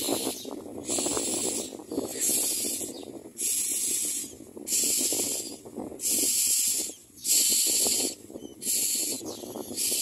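Common myna nestlings begging: harsh, hissing calls repeated about once a second, each under a second long.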